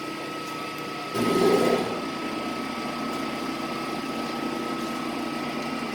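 Victor lathe running with its spindle turning at about 210 rpm, a steady machine hum with a high whine. A louder rush of noise comes in about a second in and lasts under a second.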